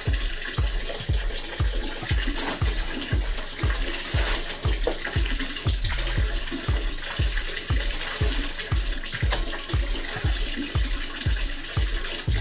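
Clothes being scrubbed and wrung by hand in a basin of soapy water: splashing and dripping water with wet fabric rubbing. Under it runs a steady low beat about three times a second.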